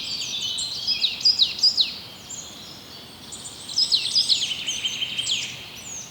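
Many small birds chirping together: quick, high, downward-sliding chirps overlapping one another in two busy spells, the first at the start and the second from about three and a half seconds in, over a faint steady hiss.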